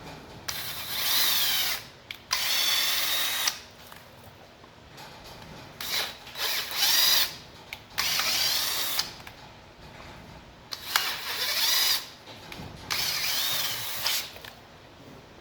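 Drill spinning a bolt into a threaded hole and back out in about six short bursts, roughly in pairs, its motor whine rising and falling in pitch with each burst. The bolt is chasing the threads clean so that Loctite will grip the metal.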